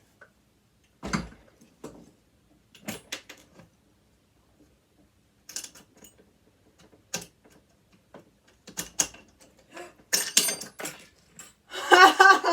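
Scattered sharp metallic clicks and knocks of hand tools working parts of a sewing machine loose, with a quicker run of clicks a couple of seconds before the end. A short vocal exclamation comes right at the end.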